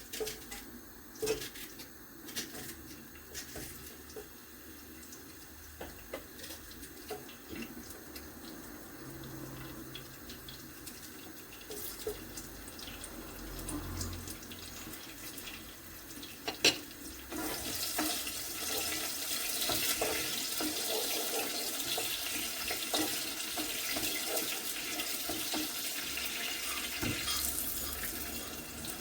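Scattered light clicks and knocks, then a bit over halfway through a steady sizzle starts and holds: chopped onions frying in hot olive oil in a saucepan.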